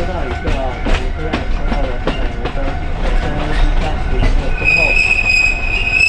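Alishan Forest Railway train running, with a low rumble and the clicks of wheels over rail joints. About three quarters of the way in, a steady high-pitched wheel squeal sets in and holds.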